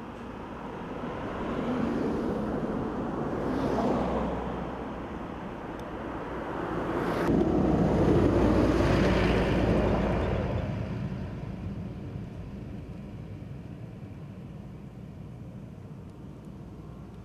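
Motor vehicles passing by on a road one after another: two smaller pass-bys in the first few seconds, then a louder, longer one about seven seconds in that slowly fades away.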